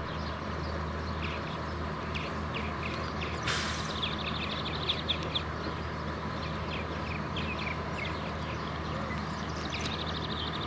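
Farm machinery engine running steadily, with many short high chirps or squeaks over it and a brief hiss about three and a half seconds in.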